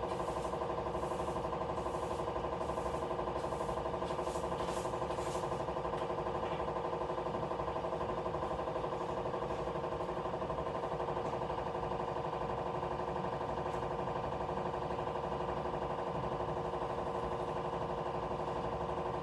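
A steady motor hum at an even pitch, with some light clattering during the first few seconds.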